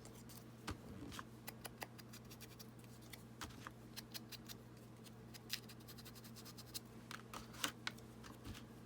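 Ink pad dabbed and rubbed on small punched circles of manila card: faint scattered light taps and scratches, over a steady low hum.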